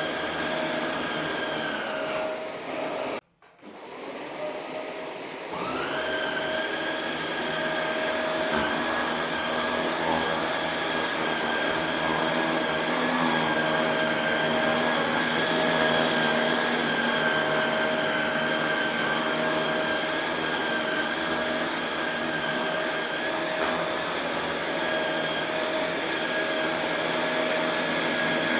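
Shark Rotator Pro Lift-Away NV500 upright vacuum running on carpet with a steady motor whine. About three seconds in its pitch sags and it cuts out briefly, then the motor spins back up to full speed.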